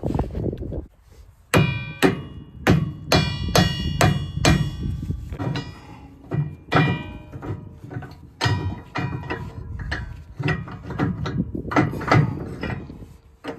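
Sharp metallic clanks that ring briefly, in a quick run of about eight strikes and then more scattered ones: a steel wrench knocking against the bolts and steel frame at a wheel line's hydraulic drive motor as they are worked loose.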